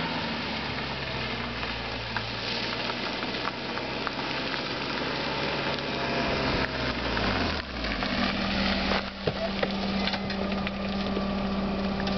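BMW E46 328i's straight-six engine running at low revs, its pitch falling about two-thirds of the way through and then settling into a steady idle, with a steady crackling hiss over it.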